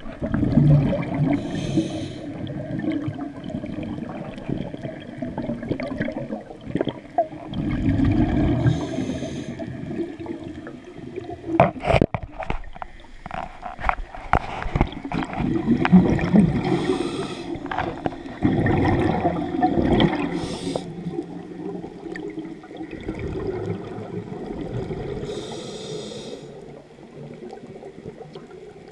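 A scuba regulator breathing underwater: a hiss on each inhale, then exhaled bubbles gushing and gurgling, several breaths in turn. A few sharp clicks sound near the middle.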